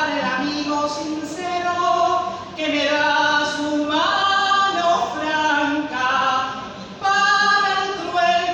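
A woman singing unaccompanied into a microphone, holding long notes one after another.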